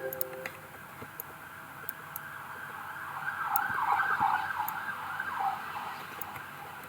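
A siren in the distance, wailing in quick rising-and-falling sweeps that swell about halfway through and then fade, with a few faint clicks.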